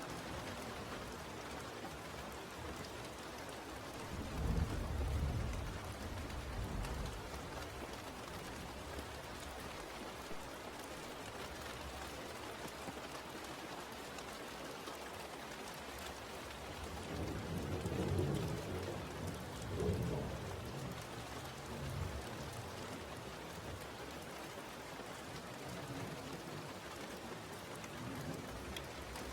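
Steady rain falling, with low rolls of thunder rumbling twice: once about four seconds in and again past the middle.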